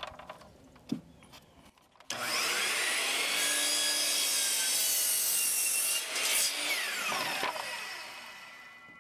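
Electric miter saw starting about two seconds in and cutting through a cedar fence picket. The trigger is let go about six seconds in, and the blade coasts to a stop, its pitch falling as the sound fades.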